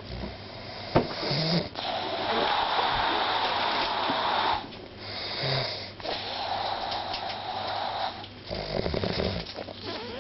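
A person snoring in sleep: several long, noisy breaths with short pauses between them, and a rattling snore about nine seconds in.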